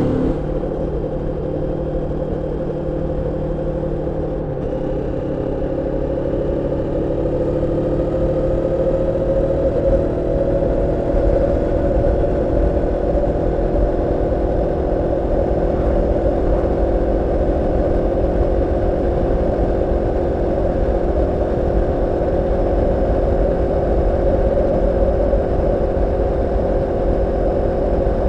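Moto Morini X-Cape 649's parallel-twin engine running under way on a break-in ride, kept to moderate revs. Its note drops abruptly about four and a half seconds in, then climbs slowly and settles into a steady cruise.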